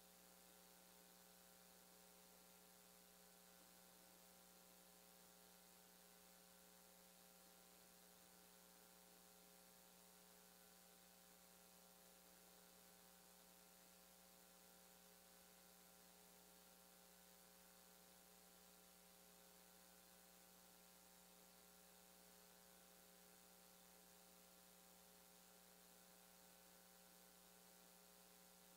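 Near silence: only a faint, steady electrical hum with a little hiss.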